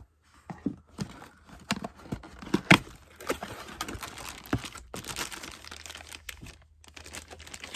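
Packaging crinkling and tearing as an RC tank transmitter is unwrapped, broken by scattered clicks and knocks, with one sharp snap, the loudest, near the middle.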